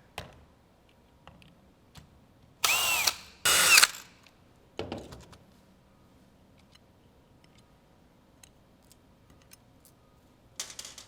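Cordless drill/driver backing out Phillips-head screws from a squeegee blade clamp: two short runs, a little under three and about three and a half seconds in, each with the motor pitch rising and falling. A knock follows, then a few light clicks and a short rattle near the end.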